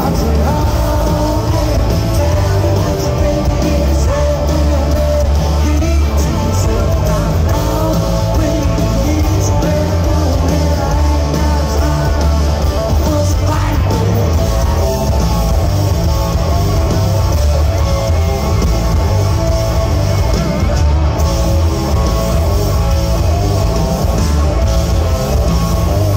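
Live rock band playing loud in a large hall, heard from the crowd: distorted electric guitars, bass and drums, with singing.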